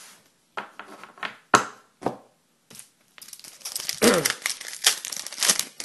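Foil wrapper of a hockey card pack being torn open and crinkled. A few scattered rustles come first, then from about three seconds in there is dense crinkling and tearing, with a short falling squeak partway through.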